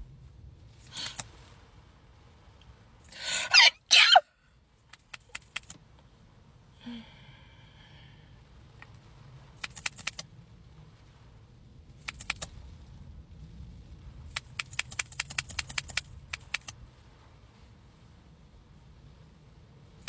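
Close-up handling of a click-pen makeup applicator: sharp plastic clicks, with a fast run of about eight clicks a second near the end as it is clicked to push product into the brush tip. A louder rustling burst comes about 3 seconds in.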